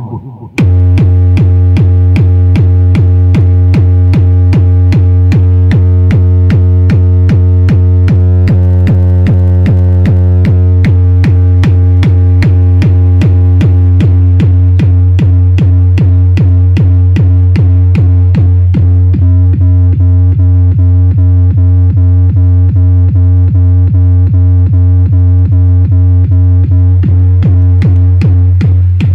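Car trunk sound system of subwoofers, Pioneer 6x9 speakers and Selenium D200 horn drivers playing electronic music at very high volume. A deep bass note is held throughout under a fast, steady drum-machine beat, and the top end thins out about two thirds of the way through.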